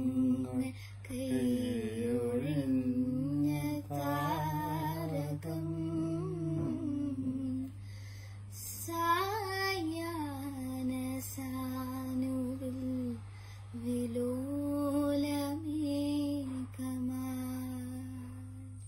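A young girl singing a slow song solo, holding long notes, with short breaths between phrases and a steady low hum underneath.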